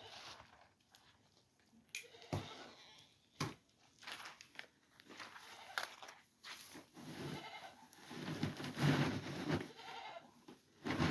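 Goats bleating, louder in the second half, with a few sharp knocks early on.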